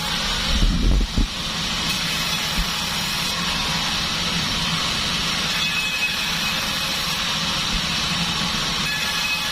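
Pandan band sawmill with a size 36 bandsaw running steadily, a constant machine hum and hiss. About a second in there is a brief low thump.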